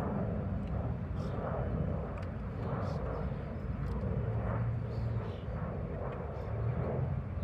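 Paperpot transplanter being pulled along a bed, a steady run of scraping and rolling with faint clicks, over a low continuous rumble.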